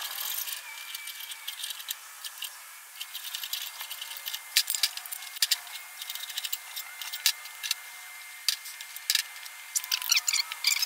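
Hand file scraping burrs off the U-joint cap bores of a Dana 60 front axle shaft yoke, in short uneven strokes with sharp metallic clicks.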